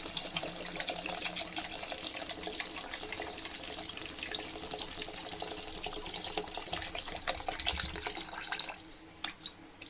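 Water poured in a steady stream from a plastic jug into an aluminium pressure cooker, splashing into the vegetable masala as the water is added for the biryani. The pour stops a little before the end, followed by a couple of light knocks.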